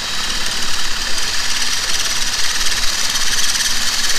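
Power drill with a 5/16-inch bit boring out the holes in a galvanized steel mounting bracket: a steady, loud, high-pitched grinding of bit on metal over the drill motor's whine.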